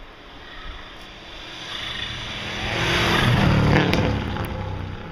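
Rally car approaching and passing at speed, engine and tyre-on-snow noise building to a peak about three to four seconds in, then fading away.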